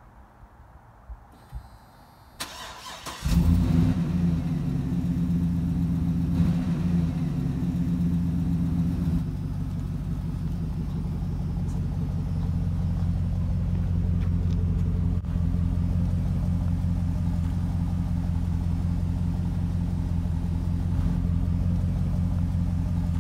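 GMC Yukon's V8 engine being started: a brief crank about two and a half seconds in, catching within a second, running at a raised idle for several seconds, then settling to a steady idle.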